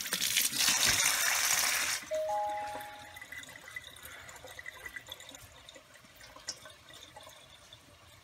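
Kitchen tap water pouring onto hot boiled plantains in a stainless steel colander, running to cool them. It is loud for about two seconds, then drops to a faint trickle, with a brief squeal as it drops, followed by soft handling sounds as a plantain is peeled.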